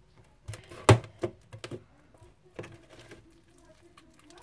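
Light clicks and knocks of a plastic stirring stick and plastic tub on a tabletop as slime is lifted out by hand, a handful of scattered taps with the loudest about a second in.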